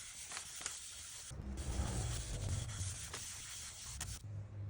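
Board butter, a paste of tung oil and beeswax, being rubbed by hand into a wooden cutting board: a steady rubbing hiss with a short break a little over a second in. The rubbing stops shortly before the end.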